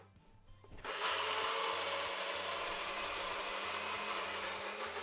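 Compact personal blender switching on about a second in and then running steadily, blitzing cooked yellow split peas with stock and oil into hummus.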